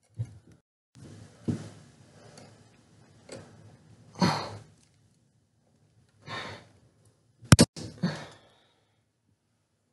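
Wire cutters snipping through a ceiling-fan wire: a sharp double click about three-quarters of the way in. Several audible breaths or sighs come between the cuts.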